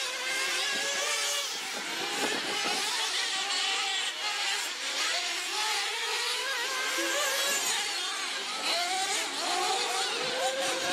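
Several 1/8-scale nitro RC buggy and truggy engines running at high revs, their pitches rising and falling over one another as the cars accelerate and brake around the dirt track.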